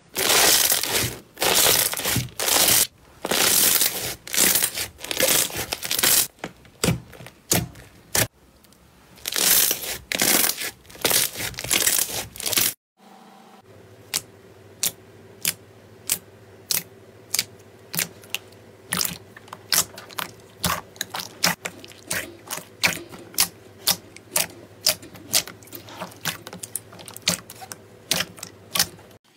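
Hands squeezing and pressing a bubble-filled slime, giving loud crackling, squelching bursts. After a short break, fingers poke and press a glossy slime in a tray, making a run of sharp little pops about three a second over a faint steady hum.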